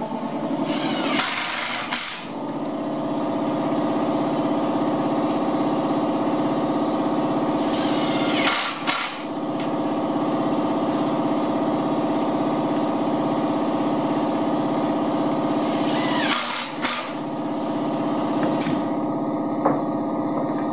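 A steady, pitched machine hum with three short, louder bursts of higher, noisy sound about seven seconds apart.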